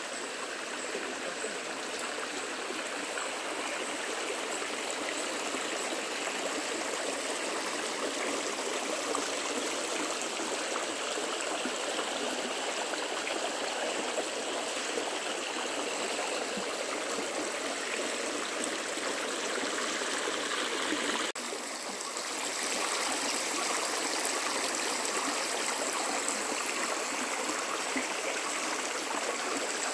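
Clear, shallow stream rushing and babbling steadily over rocks and stones. The sound breaks off briefly about two-thirds of the way through, then resumes slightly louder.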